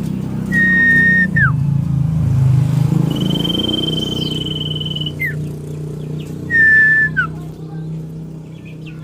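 Common iora (cipow) singing: three long whistles, each held on one pitch and ending in a quick downward slur, the middle one higher, longer and slightly wavering. A steady low hum runs underneath.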